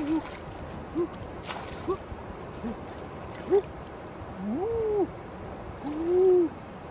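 Chicken clucking: a string of short, low calls about a second apart, each rising and falling, with a longer call near the end. A single sharp click about one and a half seconds in.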